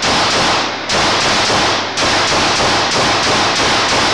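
9mm CZ 75B Omega pistol fitted with an LWD compensator fired repeatedly, several loud shots about a second apart, each ringing on in the enclosed indoor range.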